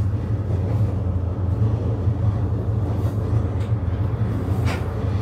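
Running noise inside a HB-E300 series hybrid railcar under way: a steady low drone from the drive, with a few faint clicks from the wheels on the rails, one clearer near the end.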